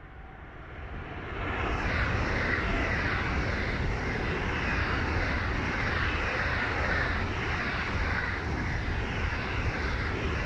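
Eurostar Siemens Velaro e320 high-speed electric train passing close by at speed: a rush of wheel and air noise that swells over the first two seconds and then holds steady.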